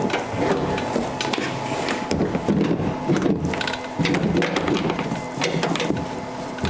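Irregular plastic clicks, knocks and rattles as a plastic door-module panel carrying an electric window regulator is pushed and worked into a van's door shell.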